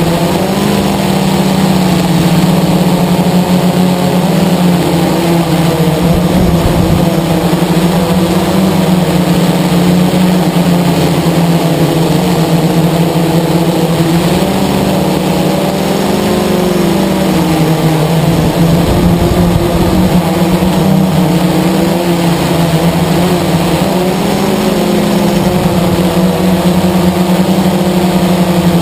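Blade 350 QX quadcopter's four brushless motors and propellers droning steadily, recorded from the onboard camera on the aircraft itself. The pitch wavers with throttle, dipping briefly about halfway through as it descends.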